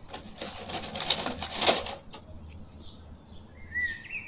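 Clear plastic packaging rustling and crinkling as a toy action figure is lifted out of its tray, in several quick bursts over the first two seconds. A bird chirps near the end.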